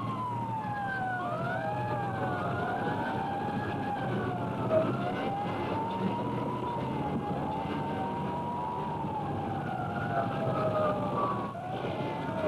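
Several fire engine sirens wailing at once, their pitches rising and falling and overlapping, over a low engine rumble. The sound drops out briefly near the end.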